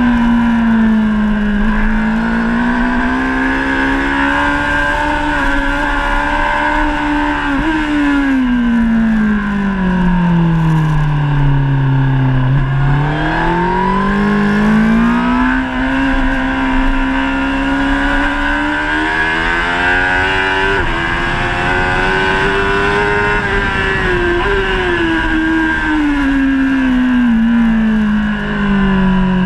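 Honda CBR1000RR SP Fireblade's inline-four engine revving hard, heard from the bike with wind rush over the microphone. The engine pitch holds high and wavers, drops steeply to a low note about twelve seconds in as the bike slows for a corner, climbs back up, and falls again near the end.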